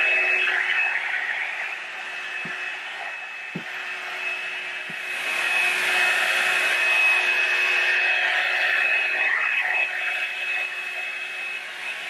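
Revlon One-Step hot-air brush dryer running with a steady rush of air and a thin high whine, growing softer and louder as the brush is worked through the hair. It dips about two seconds in and comes back up about five seconds in.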